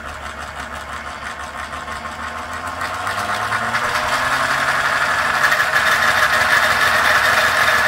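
A 3D-printed turbocharger model's impeller, driven by an electric motor through printed plastic gears, spinning up as the power is raised to about half. The whirr rises in pitch and grows louder over the first few seconds, then holds steady.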